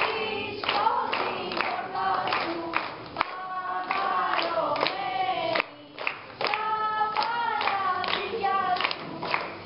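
Children singing a melody with a group of children clapping their hands in a steady beat; the singing and clapping drop away briefly about six seconds in.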